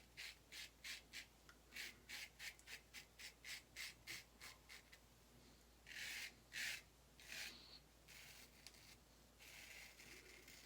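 Autostrop safety razor scraping through lathered stubble in quick short strokes, about three to four a second, then three longer, louder strokes. A faint steady hiss comes in near the end.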